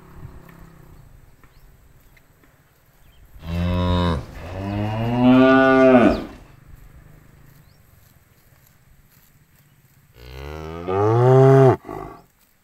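Cattle mooing: a long two-part moo a few seconds in, rising then falling in pitch, and another moo near the end.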